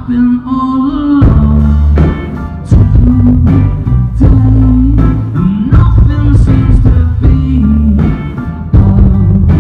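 Live pop-rock band playing loudly: drums, bass and guitar with singing, heard through a crowd-held phone microphone with heavy bass. The band is thinner for about the first second, then comes in at full strength.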